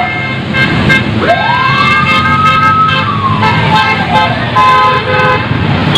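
A siren gives one long wail, rising steeply about a second in, holding, then sliding slowly down, over the engine and tyre noise of passing vehicles.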